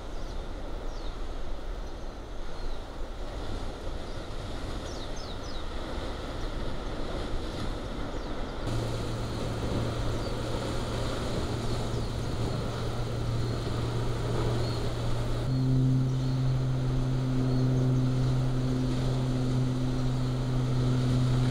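Lava fountain at a Kilauea fissure erupting: a steady, rough rushing noise. About nine seconds in a steady low hum joins it, stepping up in pitch and getting louder at about fifteen seconds.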